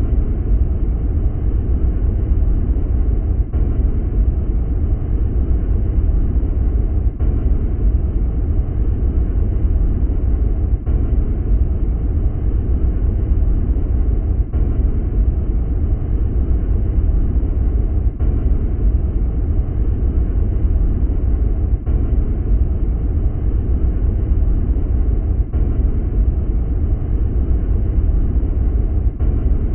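Deep, steady rumble of noise, strongest in the lowest bass, presented as a 'space sound' of Saturn's moon Prometheus. It is a short loop that repeats about every three and a half seconds, with a faint seam at each repeat.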